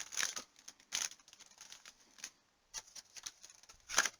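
Irregular crinkles and ticks as cellophane-wrapped trading-card packs and their cardboard retail box are handled, with one louder crackle near the end.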